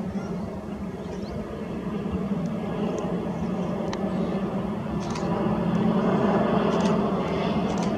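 Jet engines of an Airbus A321 airliner on final approach: a steady low hum and rumble that grows louder as the aircraft comes closer.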